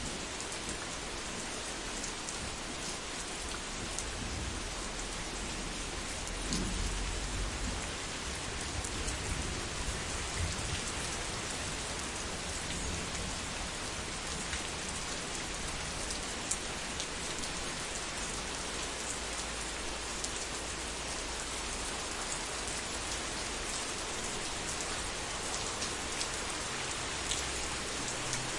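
Steady rain of a thunderstorm falling on surfaces, with scattered sharp drip ticks. A low roll of thunder rumbles in about four seconds in, is loudest around seven seconds, and dies away by about eleven seconds.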